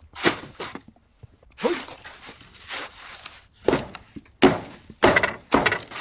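Snow shovel striking hard-packed snow on a cabin roof's edge: about nine sharp knocks, unevenly spaced, as clumps break off and fall. The snow is frozen so solid that it comes away only in small pieces rather than sliding off in one slab.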